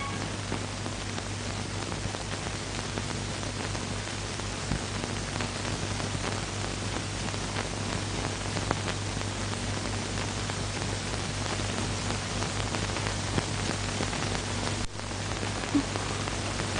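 Steady rain-like hiss with a low hum underneath and a few faint ticks; it drops out for an instant near the end.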